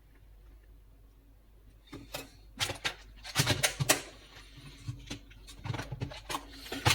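Irregular clicks, taps and rustles of small parts and tools being handled on a workbench. They start about two seconds in, after a short quiet stretch.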